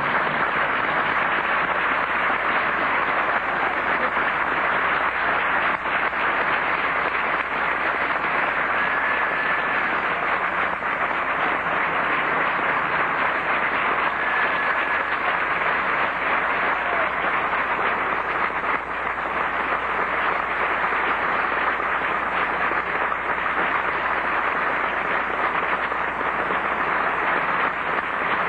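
Theatre audience applauding steadily, with a couple of brief high whistle-like tones.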